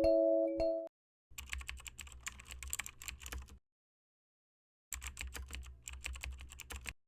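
Typing on a computer keyboard: two runs of quick key clicks, each about two seconds long, with a pause of a second between them. Just before, a short chime-like melody of held notes ends about a second in.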